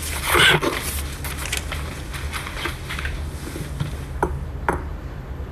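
Sheet of paper rustling briefly as it is handled, then two light clicks near the end, over a steady low hum of room tone.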